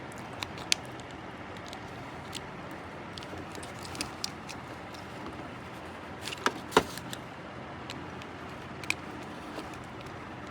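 Scattered small sharp clicks and taps of hands working on a trolley bag's combination lock, the loudest a pair of clicks near the middle, over a steady background noise.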